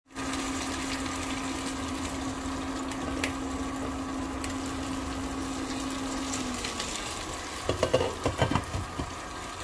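Soup boiling hard in a metal pot, a steady bubbling with a low hum under it that stops about two-thirds of the way through. Near the end a ladle knocks and scrapes against the pot several times as the soup is stirred.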